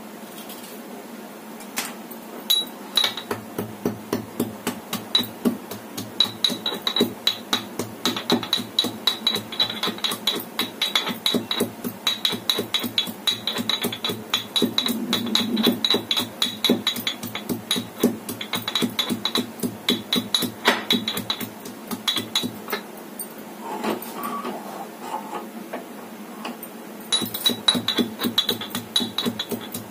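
Metal pestle pounding in a small steel kitchen mortar: rapid ringing metallic strikes, a few a second, with a pause of a few seconds near the end before the pounding resumes.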